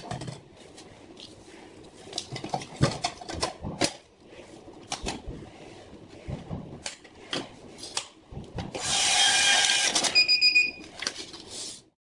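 Plastic clicks and knocks of an 80mm thermal receipt printer's paper compartment being opened, loaded with a paper roll and snapped shut. About nine seconds in, the paper feed runs for about a second with a whirr. A short high beep from the printer's buzzer follows.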